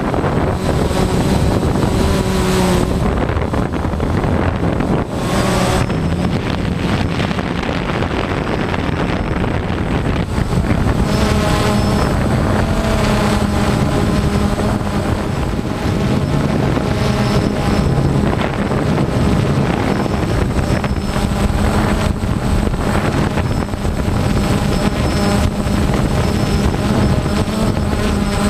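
Camera drone's propellers and motors whirring steadily, with a thin high whine on top; the pitch shifts a little as the drone manoeuvres.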